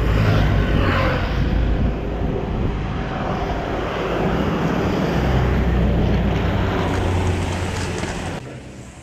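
Wind buffeting the microphone of a handlebar-mounted action camera on a moving bicycle, with the hiss of tyres on a wet road. The rumble falls away near the end as the bike slows to a stop.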